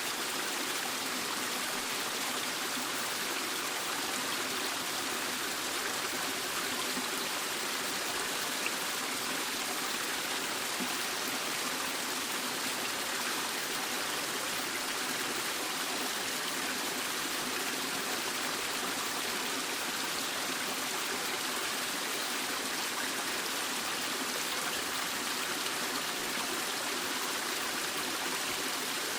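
Waterfall: water falling and rushing with a steady, even splashing.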